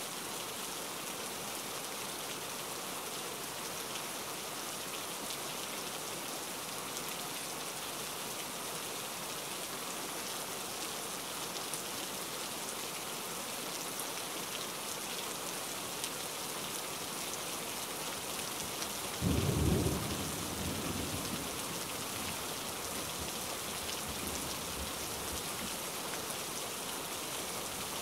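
Steady rain falling, with one short low rumble of thunder about two-thirds of the way through that fades over a couple of seconds.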